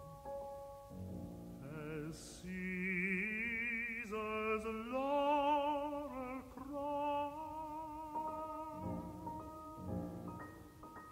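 A tenor sings a slow recitative phrase with wide vibrato over soft sustained piano chords. Near the end it gives way to sparse, quiet low piano notes.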